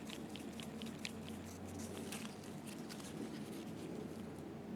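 Faint, irregular light clicks and ticks of small metal parts being handled as a Tono stop pin is fitted into a slit-lamp observer tube, over a low steady hum.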